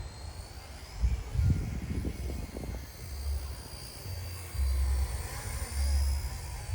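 Small RC Era C032 UH-1 Huey model helicopter in flight: a thin high-pitched motor and rotor whine that wavers slightly in pitch. Wind buffets the microphone in gusts, with a rougher stretch about one to three seconds in.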